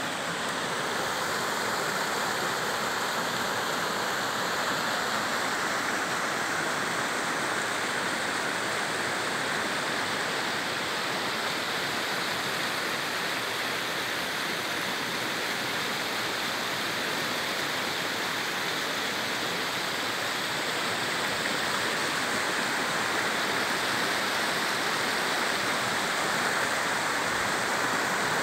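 Mountain stream running over stones and small riffles: a steady rush of water.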